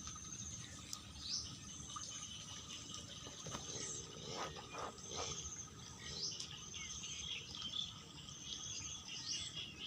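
Insects trilling in short high-pitched pulsed bursts, repeating every second or two over a steady low rush, with a few brief lower calls about four to five seconds in.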